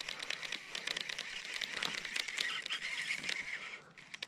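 Baitcasting reel cranked fast to retrieve line, a rapid ticking whir from its gears that stops about four seconds in, followed by a couple of separate clicks.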